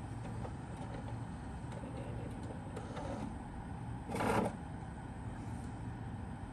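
Denon DCM-500AE five-disc CD changer mechanism at work between discs: a low steady whirr, with one short louder burst of noise about four seconds in.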